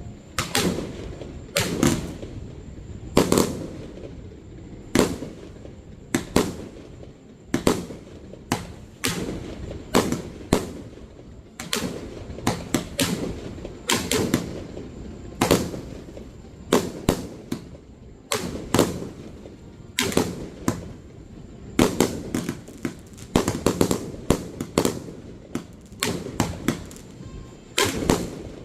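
Aerial fireworks shells going off in quick succession, sharp bangs roughly one to two a second, each followed by a short rumbling echo.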